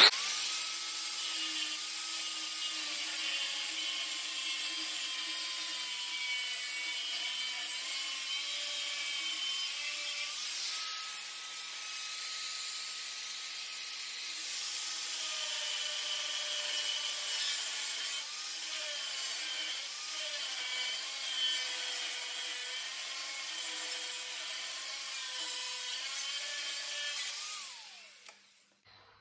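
Angle grinder running continuously as it cuts into a steel tractor exhaust pipe below the old weld seam. The motor whine dips and recovers as the disc bites into the metal. Near the end it is switched off and winds down with a falling pitch.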